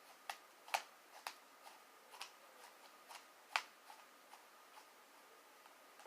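Soft, sticky slime being worked in the hands, making irregular small clicks and pops, with two sharper ones about a second in and past three and a half seconds.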